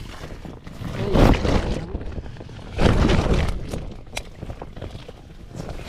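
Water splashing in two loud rushes, about a second in and again about three seconds in, with quieter sloshing between.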